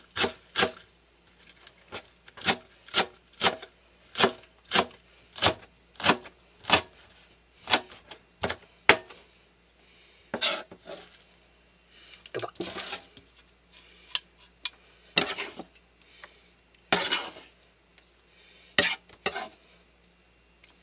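Kitchen knife chopping garlic chives on a plastic cutting board, sharp chops about two a second. After about nine seconds the chopping gives way to a few scattered, longer strokes of the blade scraping and gathering the chopped chives.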